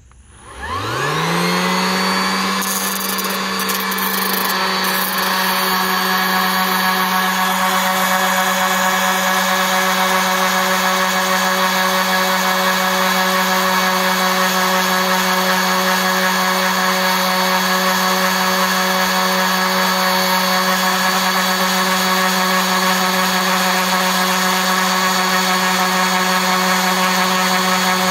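Ridgid 18-volt orbital sander switched on, its motor rising in pitch for about a second and then running steadily, with the rasp of a wood block pressed against its upturned sanding pad.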